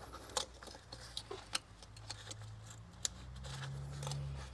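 A few sharp, small plastic clicks and taps as wiring harness connectors are handled and pressed onto the ignition coils of a BMW S65 V8, over a faint low hum.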